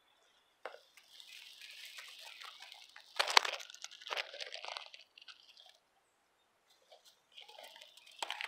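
Dry hay rustling and crackling in bursts as baby rabbits shift and push through the nest close to the microphone, with one sharp knock about three seconds in.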